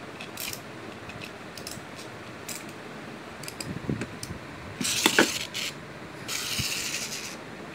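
Plastic toy tool pieces being handled: scattered light clicks and rattles, a louder clatter about five seconds in and a second of rasping rattle near the end.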